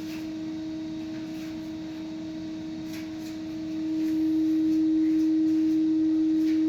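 A steady hum held at one pitch, growing louder about four seconds in.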